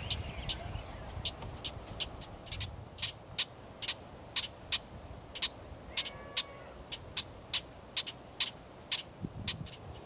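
A bird's sharp, high chip call repeated steadily about three times a second, with a couple of faint whistled notes about six seconds in.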